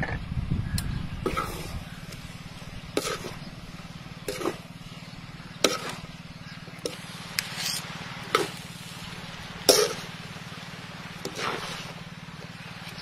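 Metal spatula scraping and knocking against a large wok as yellow noodles with squid are stir-fried and tossed, a sharp scrape or clank every second or so over a steady low hum.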